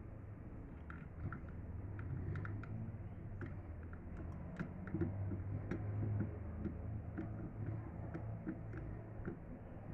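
Scattered light clicks and taps, a few a second and irregular, over a low steady hum.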